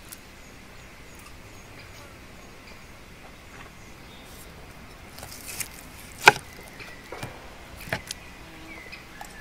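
A few sharp clicks and taps, the loudest about six seconds in and another near eight seconds, as a metal fork pierces steak slices and knocks against a wooden cutting board, over a faint steady hiss.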